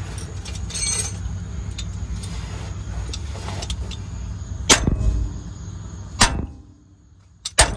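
Three sharp metal-on-metal hammer blows, struck to knock a tie rod end loose from the pitman arm of a 1999 Ford F-250 Super Duty's steering linkage. The first comes about five seconds in, the next about a second and a half later, and the last near the end. The joint stays stuck. A low steady rumble underneath drops away after the second blow.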